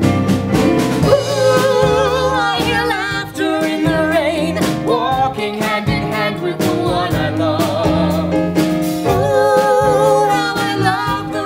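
Singing with instrumental accompaniment, the voice holding long notes with vibrato over a steady backing.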